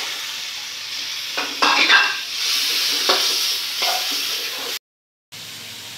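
Chicken pieces sizzling in margarine with garlic and chili in a wok, stirred with a spatula that scrapes and knocks against the pan a few times. The sound drops out for half a second near the end.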